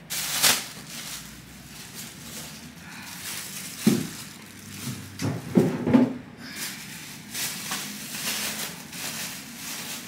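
Handling noise and rustling as someone moves about with the camera, with a few knocks and clatters, the clearest about four seconds in and again around six seconds.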